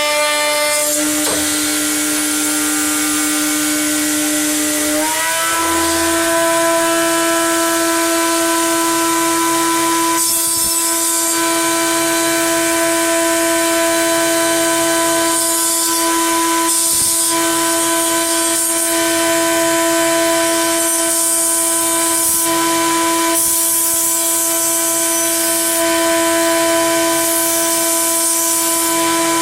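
Chinese-made CNC milling spindle running with a steady high whine while milling aluminium. Its pitch steps up slightly about five seconds in, and bursts of hiss come and go every few seconds.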